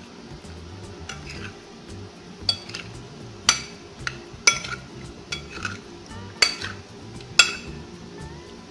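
Eel pieces being stirred together with their marinade in a bowl, a utensil clinking sharply against the bowl about once a second.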